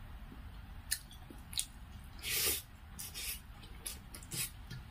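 Close-miked eating sounds: a handful of short wet clicks and squishes from rice and poi saag being mixed by hand on a metal plate. The loudest is a longer hissing squish about halfway through.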